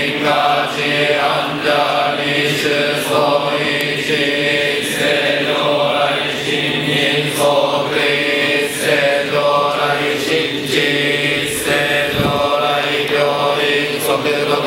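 Shingon Buddhist monks chanting a sutra together in unison, a steady low drone of many male voices held on one pitch with an even syllable rhythm.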